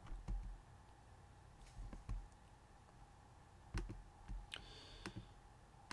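Faint computer mouse clicks, a handful of short sharp clicks at uneven intervals.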